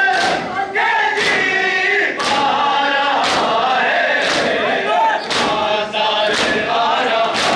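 Matam: a crowd of men chanting a noha together while beating their chests in unison with the flat of the hand. The strikes land as sharp thumps about once a second under the chanting.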